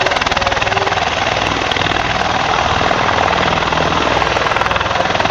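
Helicopter flying, its rotor blades chopping with a rapid, steady beat over loud engine noise.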